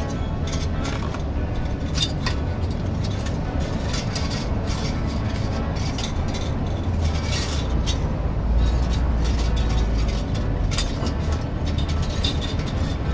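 Workshop background noise: a steady low rumble, louder for a couple of seconds past the middle, with scattered light clicks and clinks as thin steel wire wound around a car's driveshaft beside the CV boot is worked loose and pulled off by hand.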